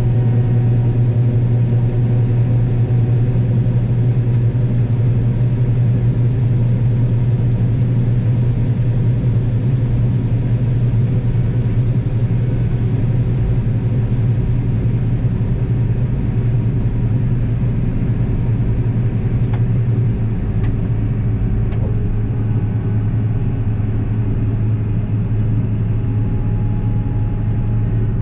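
Combine harvester engine running steadily, a deep even drone that drops slightly about twenty seconds in.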